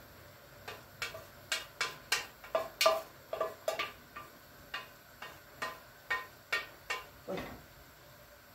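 A kitchen utensil clicking and tapping against cookware while noodles are moved from pot to pan: about twenty sharp clicks at roughly three a second, stopping about a second before the end.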